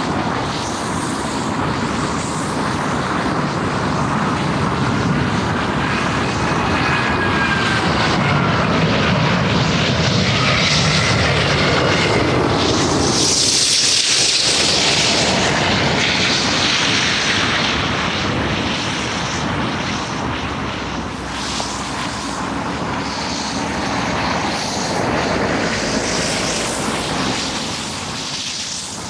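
Emirates Airbus A380 jet engines on final approach, the jet noise building as the airliner comes in low and passing overhead about halfway through with a loud hissing peak, then falling away. Faint whistling tones glide in pitch as it draws near. Near the end, a quieter, more distant airliner on approach.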